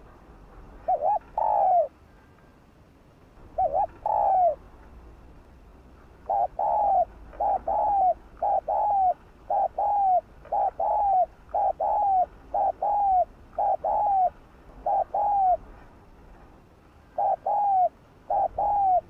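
Spotted dove cooing: short two-note phrases, a brief note followed by a longer falling coo. After two separate phrases, it breaks into a fast run of about nine phrases roughly one a second, then two more near the end.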